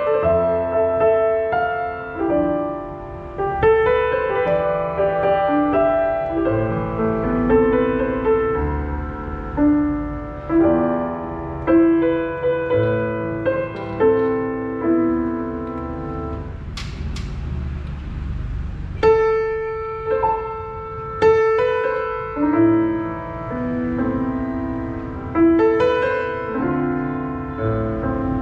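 Roland HP508 digital piano playing a slow, melodic piece of notes and chords, each struck and left to ring away. About two-thirds of the way through a chord is held and the playing thins out, then struck chords resume.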